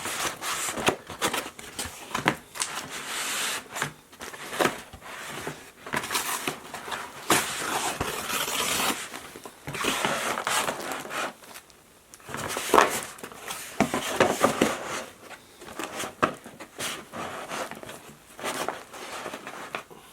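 Takeout food packaging being handled: paper and plastic crinkling and rustling, with some tearing and scattered sharp clicks and knocks.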